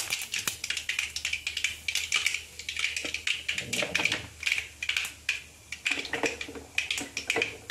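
Mustard seeds popping and crackling in hot coconut oil in a kadai: a fast, irregular run of sharp ticks over a light sizzle.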